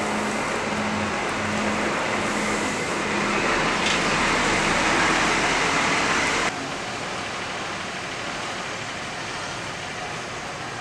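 Diesel engine of a Hino-chassis coach running as the bus moves slowly past, a low hum at first, then a louder rushing noise from about three and a half seconds in that cuts off suddenly at about six and a half seconds. After that comes quieter, steady traffic noise.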